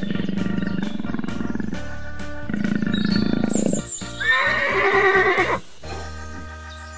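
A horse whinnying: one long, wavering neigh starting about four seconds in, over background music.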